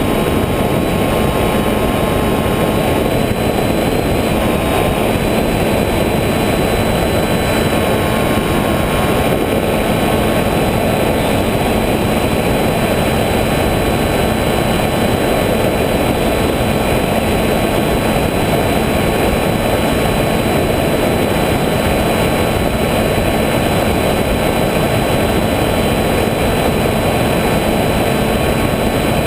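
Motor and propeller of an FPV model aircraft running steadily, a high whine over loud rushing wind noise. The whine wavers slightly in pitch during the first few seconds, then holds steady.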